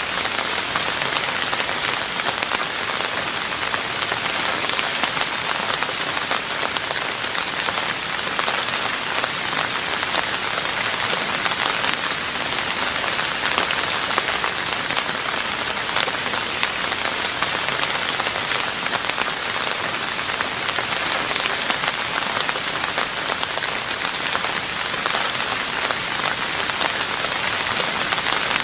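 Steady heavy rain falling on a roof: a dense, even patter of countless drops that does not change.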